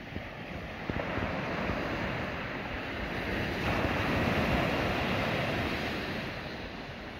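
Sea surf washing on the shore, swelling to a peak about halfway through and then fading, with wind buffeting the microphone.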